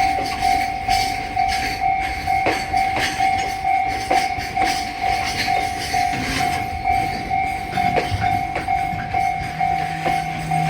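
Japanese railway level-crossing alarm ringing, one electronic tone repeated about twice a second, with a few sharp clacks at irregular intervals. A low steady hum joins about nine seconds in.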